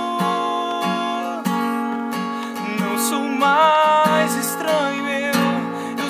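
Acoustic guitar strummed in a steady rhythm, with a man's voice singing long held notes over it that slide in pitch about halfway through.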